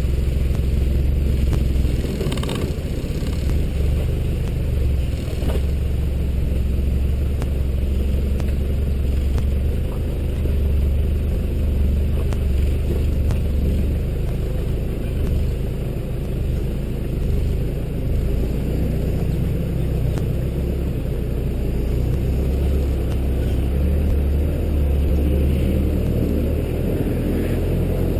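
Toyota Hilux 4WD engine running steadily under load as the vehicle crawls up a rocky track, heard from the bonnet as a deep, constant rumble. A couple of short knocks from the tyres and suspension working over the rocks come a few seconds in.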